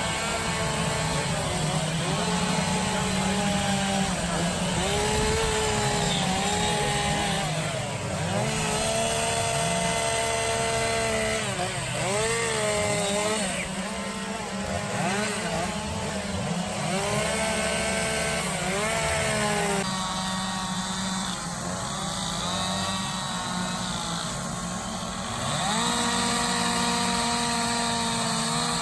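Chainsaws carving wood, running throughout with the engine pitch rising and falling over and over as the throttle is worked. A quieter stretch comes about two-thirds of the way in, then full revs again near the end.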